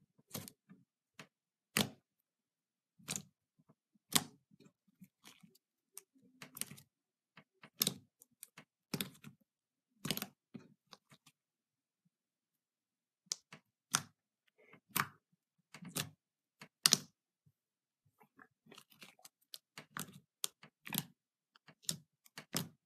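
Thick light-blue slime being pressed, stretched and folded by hand, giving irregular sharp wet pops and clicks about once a second, with a run of smaller crackles near the end.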